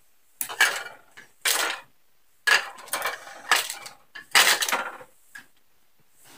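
Kitchen knife scraping and clattering on a granite countertop while it saws open a plastic-wrapped sleeve of crackers, the wrapper crinkling. The sound comes in short irregular bursts, with a longer busy stretch in the middle.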